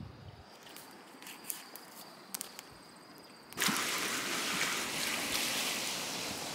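Small lake waves lapping and splashing against bare granite shore rock. The sound starts suddenly a little over halfway through. Before that it is quiet, with only a faint steady high tone and a few light clicks.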